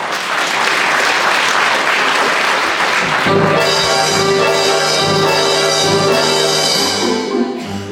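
Audience applause, and then, about three seconds in, an orchestra starts playing with held brass chords.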